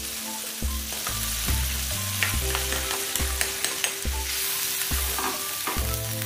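Spice paste in a little water sizzling in a nonstick wok while a ladle stirs it, with scattered clicks and scrapes of the ladle against the pan.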